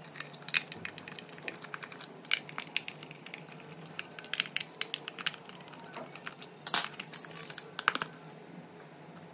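Screwdriver turning out small screws from a plastic humidifier base: irregular light clicks and ticks of the tip and screws against the plastic, with a louder cluster of clatter about seven to eight seconds in as the plastic parts are handled.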